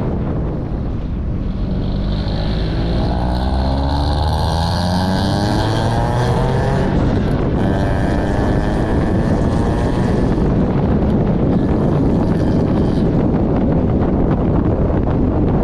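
Scion tC with a loud new exhaust accelerating: the engine note climbs steadily for several seconds, then settles into a steady, heavy rumble with wind buffeting the microphone.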